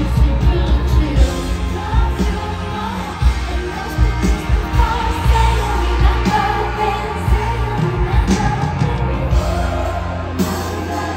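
Live concert music: a female singer singing into a microphone over an amplified band with heavy bass, recorded from within the crowd.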